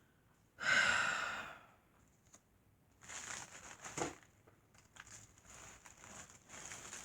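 A woman's long, heavy sigh about half a second in, then rustling and crinkling of packaging as the shattered picture frame is handled, with a few small clicks.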